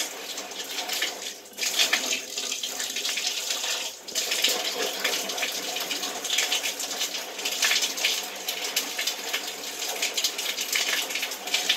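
Shower water running and splashing steadily, briefly dipping about one and a half and four seconds in.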